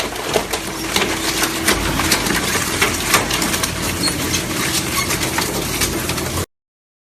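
Dragon Shred DS4080 pusher-type single-shaft shredder running as it shreds a refrigerator door: a steady machine hum under many sharp cracks and snaps. The sound cuts off suddenly near the end.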